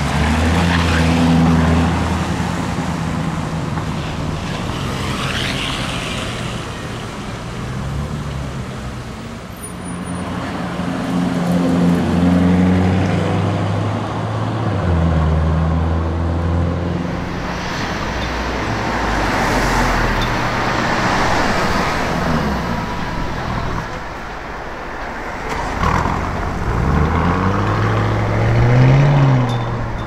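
Lamborghini Urus twin-turbo V8 engines pulling away and accelerating, the engine note rising in pitch several times over street traffic noise.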